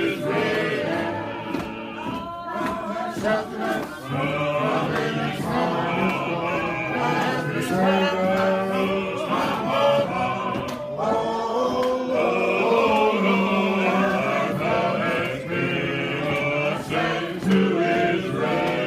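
Gospel choir of men and women singing together as they march.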